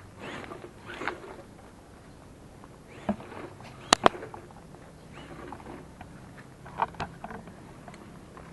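Remote-control scale truck crawling over rough trail ground: a faint steady hum with scattered clicks and knocks, two sharp clicks about four seconds in the loudest.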